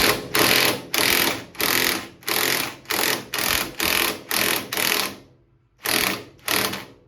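Impact wrench run in about a dozen short bursts, roughly half a second each, tightening the forcing screw of a steering-wheel puller under heavy load. There is a brief pause before the last two bursts.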